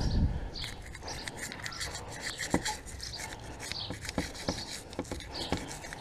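Old toothbrush scrubbing around the two pistons of a motorcycle's front brake caliper with engine degreaser: quick, irregular bristle scratching with a few sharper clicks.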